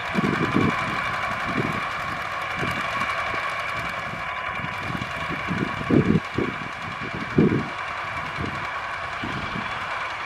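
Two Kubota RT single-cylinder diesel walking tractors running steadily under plowing load, a constant engine drone. Irregular low thumps come through it, loudest about six and seven and a half seconds in.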